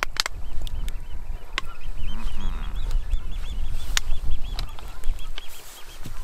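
Wood fire crackling and popping under a cooking pot, with sharp snaps every so often. From about a second and a half in to about four and a half seconds, a bird calls in the background in a quick run of short repeated notes.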